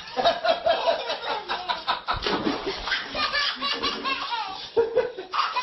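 People laughing, with a quick run of ha-ha pulses in the first second and more laughter after.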